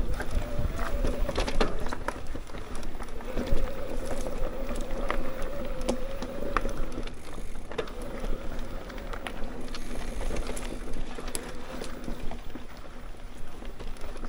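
Mountain bike rolling along a dirt trail: tyres crunching over the ground, with frequent knocks and rattles from bumps and a faint steady hum.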